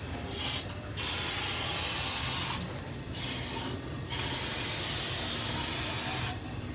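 Gravity-feed spray gun spraying water in two long steady hisses of about one and a half and two seconds, after a brief puff, driven by air from a home-made tank made from a motorcycle inner tube.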